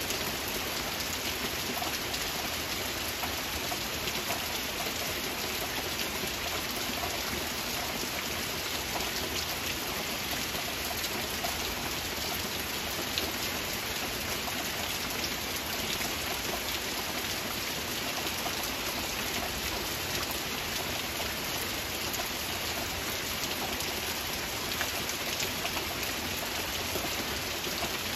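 Steady rain: an even, continuous hiss of falling rain with many small individual drops ticking through it.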